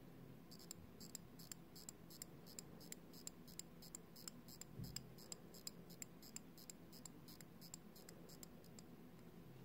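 Crown of a Vostok mechanical watch being turned by hand to wind it: a run of faint, crisp ratchet clicks, about four a second, that stops shortly before the end.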